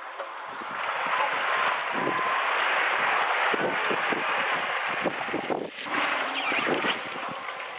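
Lada Niva driving through a muddy, water-filled ditch: tyres churning and splashing through water and mud, with the engine pulling under load. The splashing builds up about a second in, dips briefly near the end and picks up again more weakly.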